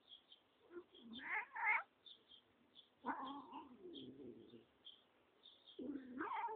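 Domestic cat meowing several times while being stroked, with one longer, drawn-out call in the middle. Faint short high chirps sound in the background.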